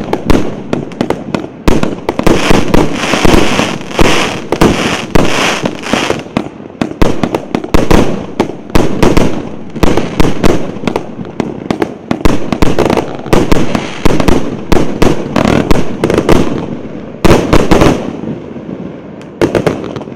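A 100-shot, 1.25-inch fireworks cake firing in rapid succession: a dense run of bangs and pops from shells launching and bursting, several a second. Near the end the barrage thins out to a few last pops as the cake finishes.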